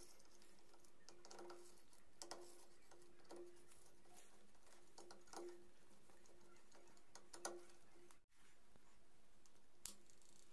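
Near silence over a faint steady hum, broken by a few faint clicks and taps of metal motorcycle engine parts being handled, roughly one every second or two.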